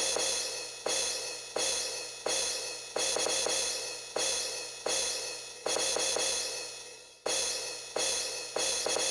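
A run of ringing metallic strikes, like a cymbal or bell, a little more than one a second, each fading away before the next.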